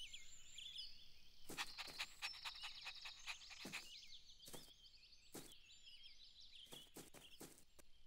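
Faint outdoor nature ambience: small birds chirping in many short, quick calls, with scattered soft taps or clicks between them.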